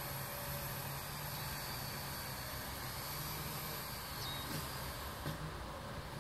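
Home-built quadcopter's electric motors and propellers buzzing steadily with a high whine. The whine drops away about five seconds in, leaving a few faint clicks.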